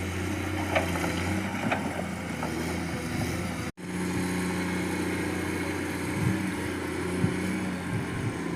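Excavator's diesel engine running steadily, with a few short knocks over it. About four seconds in the sound cuts out for an instant and comes back with the engine at a different pitch.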